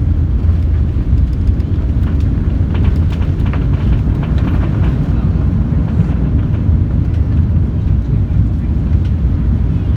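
Cabin noise of an Airbus A380 with Rolls-Royce Trent 900 engines: a loud, steady low rumble of engines and airflow.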